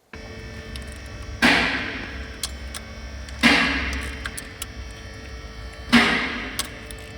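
Background music: a low drone with held tones and a heavy drum hit with a long fading tail about every two and a half seconds, three times.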